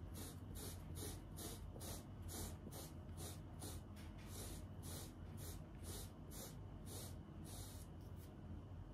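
A lint-removal rake dragged over the pile of a tufted rug in quick, even, hissy strokes, about two a second, pulling loose fibres off as the final touch-up. The strokes stop near the end.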